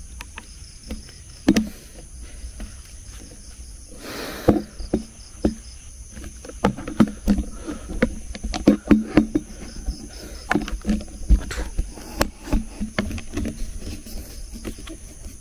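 Irregular clicks and knocks of a power bank and light being fumbled with close to the microphone, coming thicker after the first half, with a brief hiss about four seconds in. A steady high drone of night insects runs underneath.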